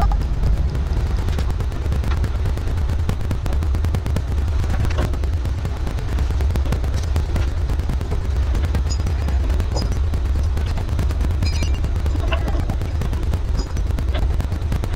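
Fishing trawler's engine running at sea: a constant low rumble with a dense, rapid crackle over it, wind and motion buffeting the microphone.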